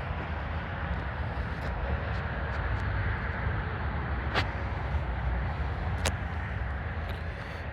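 2009 John Deere 410J backhoe loader's diesel engine running steadily with a low rumble, with two sharp knocks, one a little past the middle and another under two seconds later.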